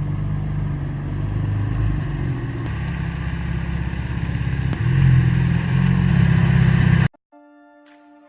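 A motor vehicle's engine running loudly with a pulsing low note, rising about five seconds in, then cutting off suddenly about seven seconds in. Faint music follows.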